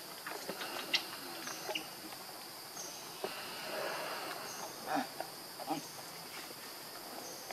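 Forest ambience: insects droning steadily at a high pitch, with short high chirps scattered through it and a few soft clicks and rustles.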